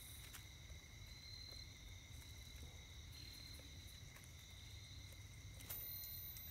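Faint steady insect chirring, a high trill that swells about once a second, over a low rumble, with a faint knock near the end.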